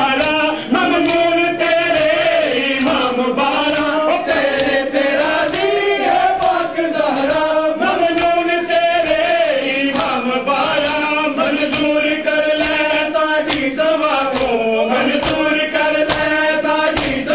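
A group of men chanting a Shia noha (Muharram mourning lament) together. The sharp, rhythmic slaps of matam, hands beating on bare chests, keep time under the voices.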